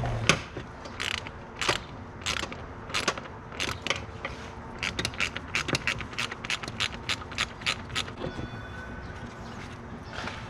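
Hand ratchet wrench clicking as bolts are undone, in spaced strokes at first, then a quicker run of clicks that stops about eight seconds in.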